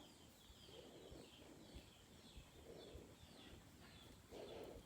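Near silence with faint bird chirping: short, high, falling chirps repeating about three times a second.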